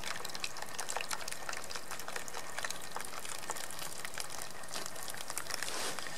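Hot water poured in a thin stream from a kettle into a collapsible bowl, splashing onto a rubber airbag lying in the water, with many small irregular splashes and a fuller rush near the end.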